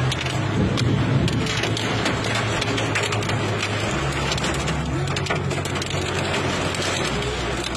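Hail and heavy rain pelting a vehicle's windscreen and roof, heard from inside as a dense, fast patter of hard clicks over the roar of rain, with a low steady engine hum underneath.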